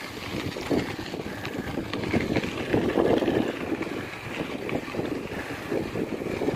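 Wind rushing over the microphone while a bicycle rides along a sandy dirt track, with irregular knocks and rattles from the bike jolting over the bumps, loudest about three seconds in.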